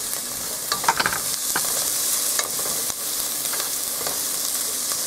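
Diced onions sizzling as they sauté in a nonstick pot, stirred with a spatula. A steady hiss of frying runs under light scrapes and taps of the spatula against the pan, with a cluster of them about a second in.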